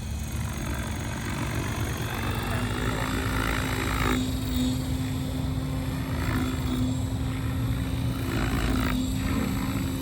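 Synergy 696 electric RC helicopter in flight, its rotor and motor making a steady hum that settles on one pitch from about two seconds in.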